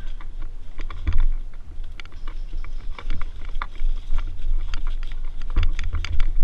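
A steady low rumble on the microphone with many scattered, irregular sharp clicks and ticks.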